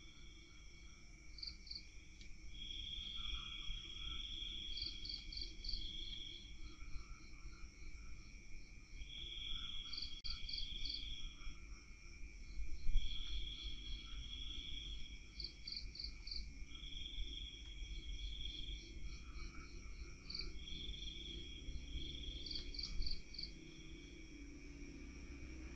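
Crickets and other night insects calling outdoors: short chirps in groups of about four alternate with longer trills every few seconds, over a steady high insect drone. A brief knock about halfway through.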